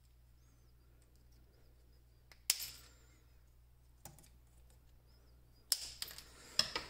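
Scissors snipping thin nickel strip: a few sharp clicks, the loudest about two and a half seconds in and a smaller one about four seconds in. Light clicks and taps follow near the end, and a faint low hum runs underneath.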